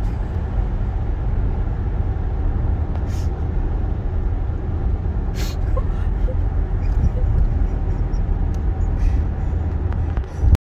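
Car cabin road noise while driving: a steady low rumble of tyres and engine, with a few brief hisses, cutting off abruptly near the end.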